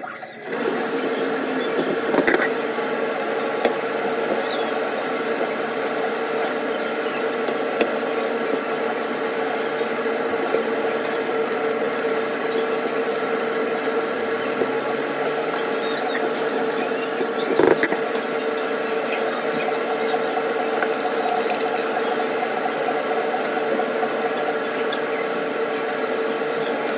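A kitchen appliance's motor or fan running steadily with a constant hum, switched on about half a second in, with a couple of short knocks.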